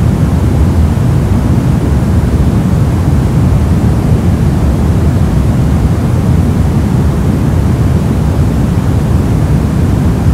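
Steady soft radio-static noise: an even, low rush with little high hiss, unchanging throughout.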